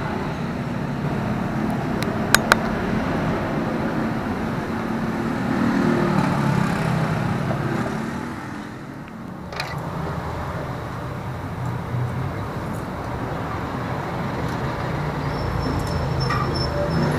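Road traffic from a busy street: the running engines of passing vehicles. It dips briefly about nine seconds in, and two sharp clicks come close together about two seconds in.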